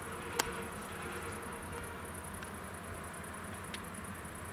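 Night-time insects, most likely crickets, chirping in a fast, high-pitched trill over a low steady background rumble, with a sharp click about half a second in.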